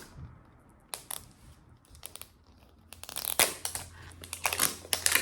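A Mini Brands surprise capsule ball being unwrapped: a few sharp clicks, then its plastic wrapping crinkling and tearing, busy and crackly from about three seconds in.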